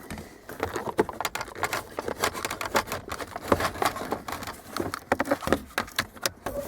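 Citroën security keypad being pulled from its mount and handled inside the car: an irregular run of small clicks, taps and rattles.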